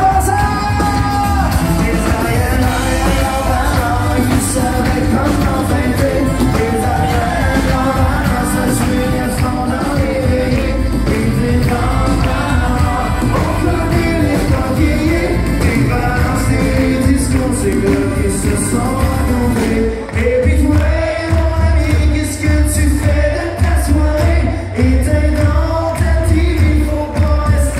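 Live country band playing with a singer, acoustic guitars, fiddle and drums. About twenty seconds in, a strong steady drum beat comes in under the singing.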